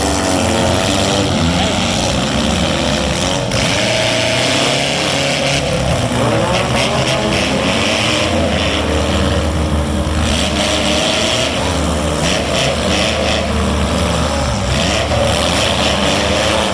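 Several four-cylinder demolition derby cars' engines running and revving, their pitch rising and falling.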